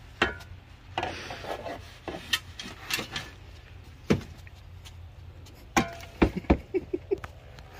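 Shovel blade scraping across the stripped car's floor and knocking against the door opening as trash is scooped out, in a series of separate clunks and scrapes.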